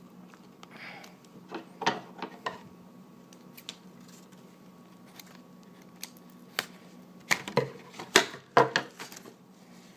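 Trading cards and their packaging being handled: scattered light clicks and taps, busier near the end, over a faint steady hum.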